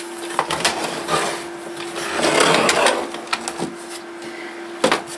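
Plastic case of an Aiwa twin-deck cassette boombox being pulled apart and handled: scattered clicks and knocks, a louder scraping rub about two seconds in, and a sharp knock near the end.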